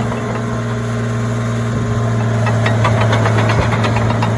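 Bulldozer's diesel engine idling with a steady low hum and a rapid, even knocking beat.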